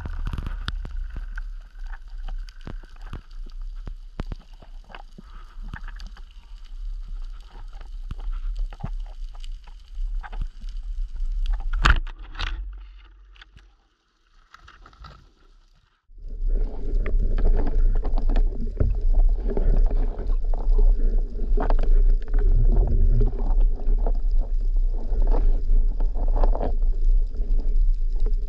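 Water noise heard through an underwater camera housing: a muffled rumble with scattered clicks and a sharp clack about twelve seconds in. After a brief drop to near quiet a couple of seconds later, a louder, denser rumble and water churning at the surface.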